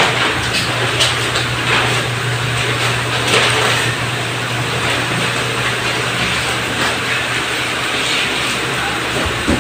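A large sheet of manila paper rustling and crinkling as it is unrolled and pressed onto a blackboard, over a steady low hum and background noise.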